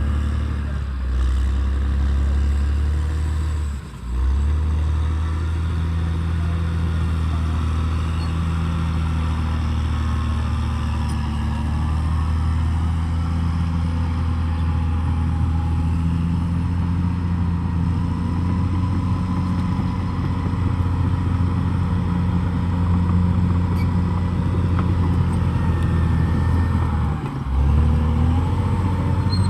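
Caterpillar D6R XL bulldozer's diesel engine running steadily under load as it works, with a low, even drone that dips briefly twice.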